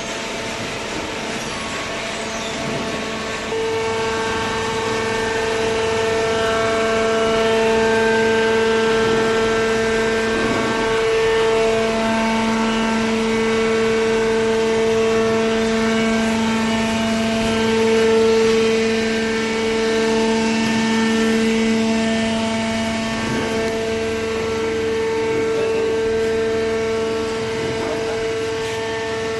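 Steady machine hum with a held whine, stepping up in loudness about three and a half seconds in.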